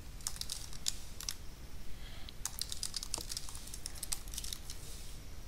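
Typing on a computer keyboard: two quick runs of keystroke clicks with a short pause between them.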